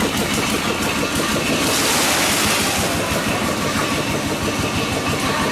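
An engine running steadily with a fast, even chug. About two seconds in, a rushing hiss lasting about a second as wet concrete slides out of a tipped steel wheelbarrow.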